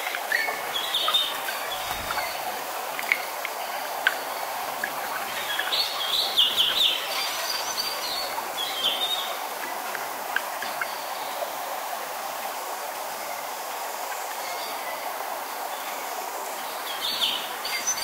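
Steady rushing of a waterfall and wind through forest trees, with songbirds chirping over it about a second in, around six to seven seconds, and again near the end.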